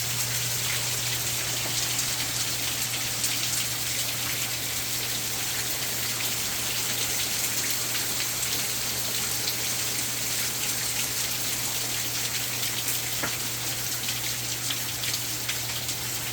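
Heavy rain falling steadily, with many close drops ticking sharply against the even hiss of the downpour. A steady low hum runs underneath.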